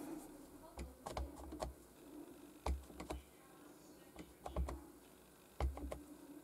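Plastic ink pad cases handled and a stamp pad dabbed onto a clear stamp on an acrylic block: a scatter of light, irregular plastic clicks and taps, some with a soft thump.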